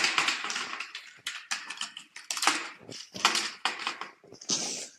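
Footsteps of sneakers walking on a dusty tiled floor, a quick run of uneven steps with a scuff at each one.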